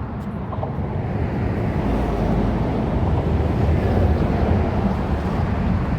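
Wind buffeting the microphone: a steady, uneven low rumble with no clear tone.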